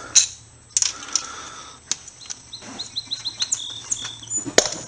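Sharp clicks and rattles of plastic wiring-harness connectors and wires being handled, loudest just after the start and near the end. From about halfway in, a small bird chirps a quick run of short rising notes, then a brief held whistle.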